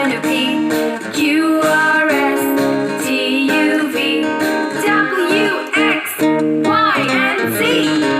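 Children's song music with a strummed guitar accompaniment and a sung melody over it.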